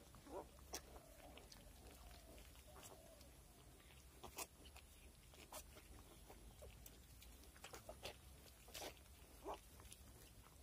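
Faint, soft wavering squeaks from newborn piglets in the first three seconds, with scattered light clicks and rustles in the straw.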